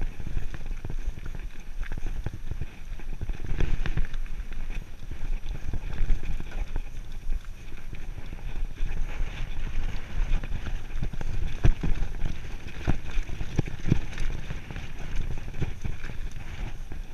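Mountain bike riding over rocky dirt singletrack: a continuous rumble of the tyres and suspension, broken by frequent sharp knocks and rattles as the wheels hit stones, with wind on the microphone.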